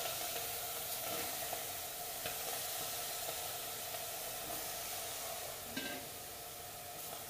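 Wet brinjal pieces and green chillies sizzling in a hot aluminium pot on a stove, a steady hiss that slowly dies down, with a brief click about six seconds in.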